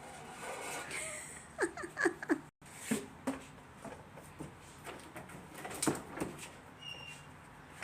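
A rooster gives three short clucks, each falling in pitch, about two seconds in, then a few softer calls, with small scattered knocks around it.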